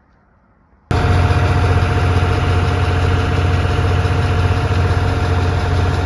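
A John Deere utility tractor's diesel engine running steadily, driving a grain auger that is loading a semi grain trailer. It starts suddenly about a second in and holds an even, deep hum with no change in speed.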